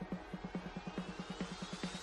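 Electronic dance background music: a fast, even pulsing bass line under a steadily rising sweep tone.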